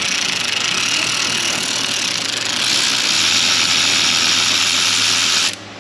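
Power ratchet running continuously as it spins a worn 100,000-mile spark plug out of its deep plug tube, stopping abruptly near the end once the plug is out.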